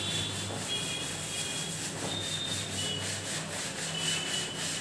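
A cloth rubbed back and forth across a chalkboard, wiping off chalk writing: a steady scrubbing sound.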